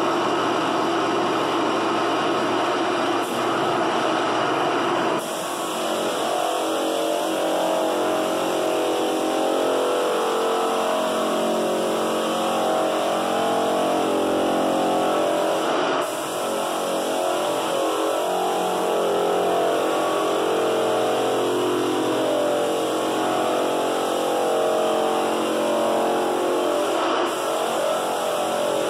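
Drum floor sander running as it sands a hardwood floor, together with a Ridgid shop vacuum pulling the dust through a cyclone separator in place of the sander's own blower. The sound is loud and steady, and its tone shifts about five seconds in.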